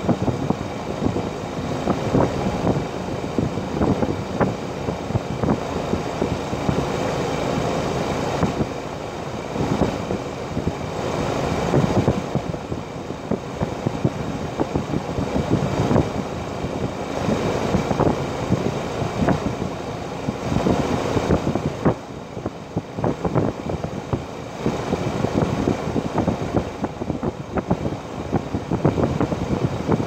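Outdoor unit of a 2012 Rheem 4-ton heat pump running in cooling mode: the condenser fan and compressor make a steady hum under a rushing, gusty air noise that swells and eases every few seconds.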